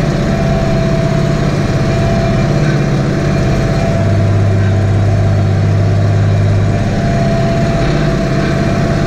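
Tractor diesel engine running steadily under load while ploughing, heard from inside the cab. A low drone swells for a few seconds in the middle, then falls back.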